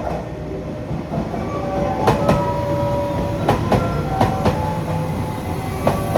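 A train rolling through the station, its wheels clacking over rail joints in pairs about a second apart over a steady rumble, with a faint steady whine.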